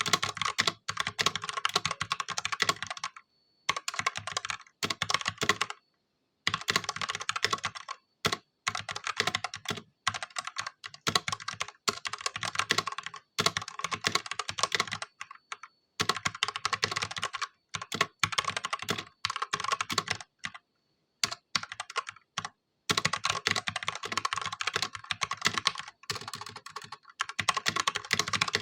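Ajazz K870T mechanical keyboard with stock, unmodified Huano Red linear switches being typed on: fast runs of key clacks broken by short pauses every few seconds.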